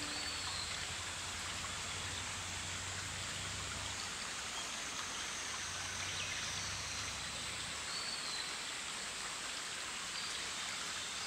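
Flowing water in a forest stream: a steady, even rush.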